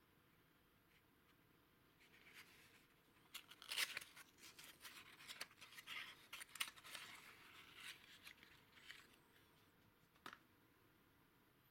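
Small, old cardboard box being opened by hand: the end flap is prised and torn open with crisp crinkling, scraping and clicking, loudest about four seconds in. A single short click comes near the end.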